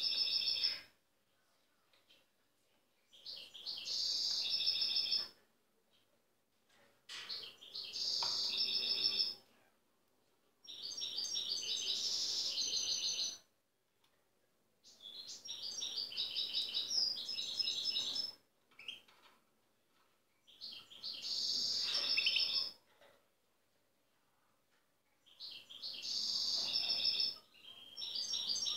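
European goldfinch singing: wild-type goldfinch song in bursts of quick, high twittering notes, each phrase two to three seconds long, with short pauses between, about seven phrases in all.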